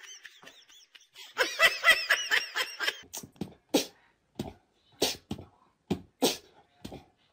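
A person laughing in quick repeated pulses, followed by a string of short sharp sounds about half a second apart.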